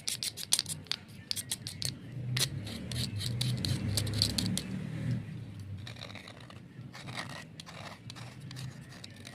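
Crisp, rapid scratching and crackling of a yellow coating being scraped off a white slate, many sharp clicks in quick succession in the first two seconds, then sparser later. A low hum rises underneath from about two seconds in and fades around five seconds.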